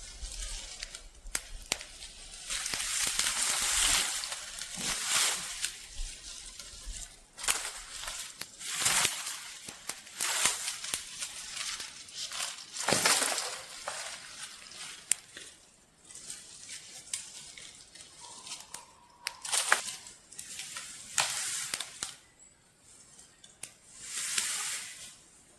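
Dry leaves and brush crunching and rustling in irregular swells a second or two long, broken by sharp snaps of twigs.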